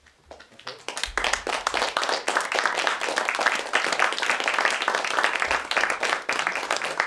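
Audience applauding: scattered claps just after the start that fill out within about a second into steady applause.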